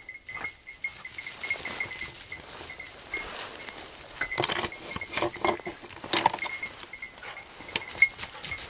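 Dry bracken rustling and crackling as a hunter and his English setters push through it, over the repeated tinkle of a small bell.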